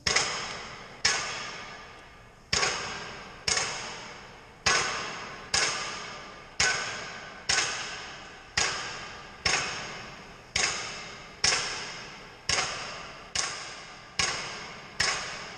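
Blacksmith's hammer striking on an anvil, about one blow a second. Each blow rings clearly and dies away before the next.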